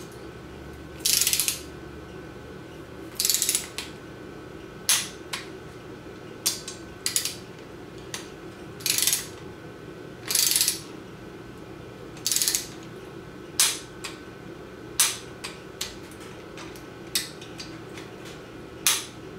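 Torque wrench ratcheting in short bursts as oil pump and pickup tube bolts are tightened, with single sharp clicks between the bursts, about a dozen strokes in all.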